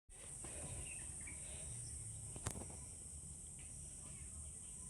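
Faint background: a steady high-pitched hiss over a low hum, with a single sharp click about halfway through.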